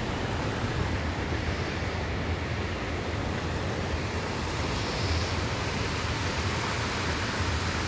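Steady rushing of water pouring through a dam spillway into a rocky creek.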